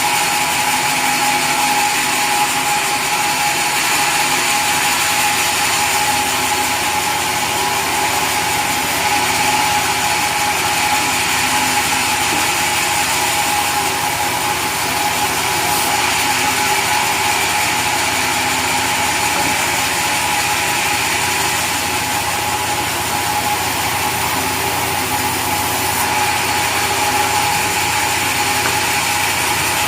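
Sawmill saw machinery running steadily, a constant mechanical hum with a steady whine over it.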